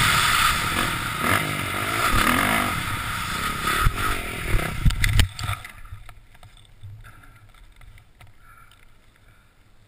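Motocross bike engine running, heard from an on-board camera with a rush of wind noise. A few sharp knocks come about four to five seconds in, then the whole sound fades out.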